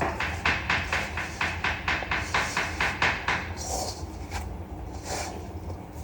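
A kitchen utensil striking rapidly and evenly, about five strokes a second for roughly three and a half seconds, then a few scattered knocks.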